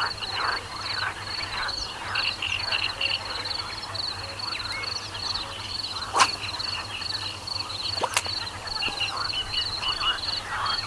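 Pond-side wildlife: frogs croaking and birds calling, over a steady, fast-pulsing high-pitched call. Two sharp clicks stand out, about six and eight seconds in.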